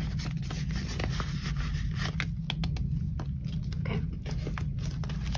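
Paper bills and a clear plastic binder pocket rustling and crinkling as they are handled, a scatter of short clicks and rustles, thickest around the middle. Under it runs a steady low hum.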